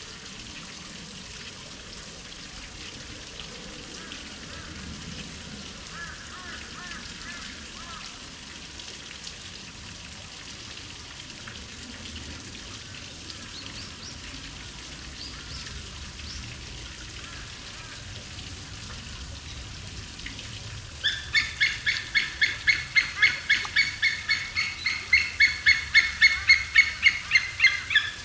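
White-tailed eagle calling: a fast series of loud, high yelping notes, about three or four a second, starting about 21 seconds in. Before that there is only a faint steady background hiss.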